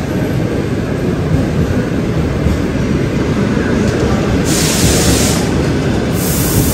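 Loud, steady low rumble alongside a standing passenger train on a station platform. A hiss comes in about four and a half seconds in and lasts over a second.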